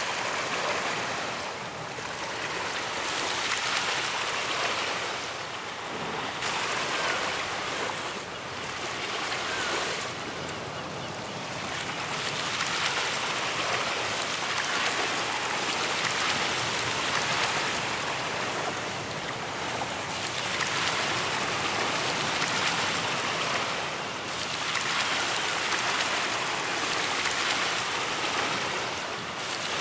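Ocean surf breaking on a beach: a continuous hissing wash that swells and eases every few seconds as waves come in and draw back.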